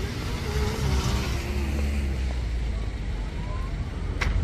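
Street traffic: a steady low rumble of car engines and tyres, with one sharp click near the end.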